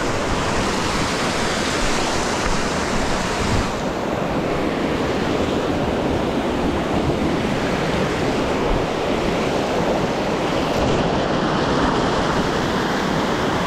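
Shallow mountain stream rushing and splashing over boulders and small cascades, a steady loud rush of water.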